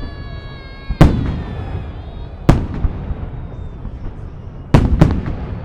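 Festive salute fireworks: shells bursting in loud booms with a rolling echo, four in all, the last two close together near the end. A steady whistle-like tone is held underneath at the start and fades out.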